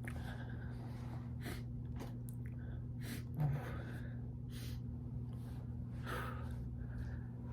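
A man sniffing and gasping in short, sharp breaths, his nose irritated by chhikni sneezing powder, with no full sneeze yet, over a steady low hum.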